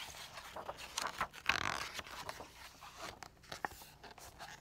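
A picture book's paper page being turned by hand: rustling and sliding paper with small clicks, loudest about a second and a half in.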